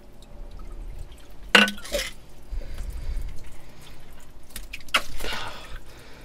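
Water dripping and sloshing in the waterlogged sewage at the bottom of a privy pit as it is dug by hand, with a few sharp knocks, the loudest about a second and a half in and another near five seconds.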